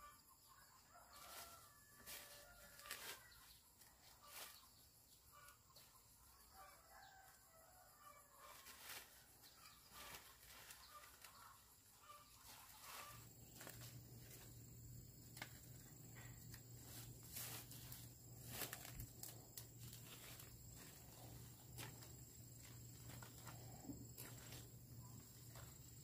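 Faint domestic chickens clucking, with scattered light clicks and knocks. About halfway through, a low steady hum comes in and continues.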